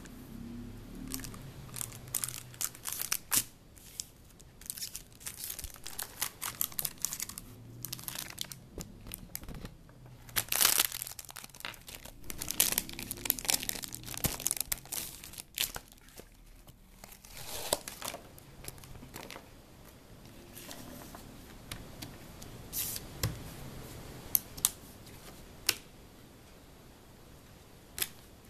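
Plastic packaging film around a round mouse pad being pulled open and crinkled by hand: irregular crackles and rustles that come thickest in the middle and thin out near the end.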